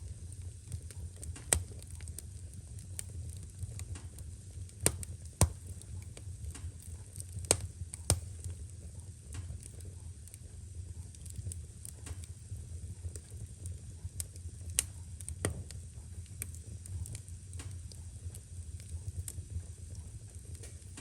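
Wood fire crackling, with scattered sharp pops over a steady low rumble. The loudest pops come about a second and a half in, twice around five seconds, and twice around eight seconds.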